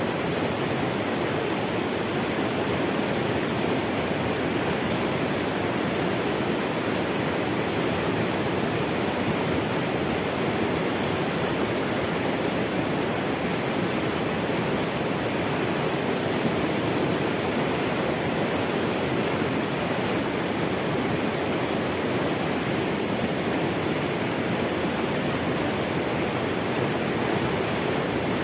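Running water rushing steadily, a continuous even noise with no breaks, like a stream or small waterfall.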